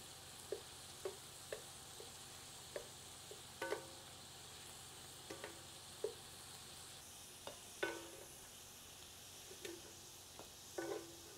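Metal tongs clinking against a frying pan in short, irregular taps as browned beef pieces are picked out, over a faint steady sizzle of frying.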